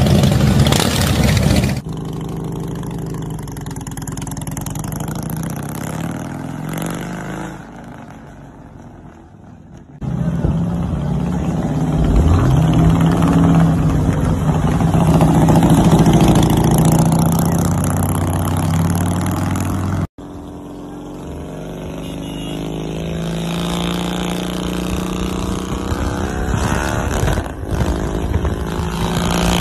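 Harley-Davidson V-twin motorcycle engines running in a run of short clips. About twelve seconds in, a bike accelerates toward the listener, its pitch rising, and is loudest as it passes close. After a sudden cut, a bike runs at a steady speed, building slowly in level.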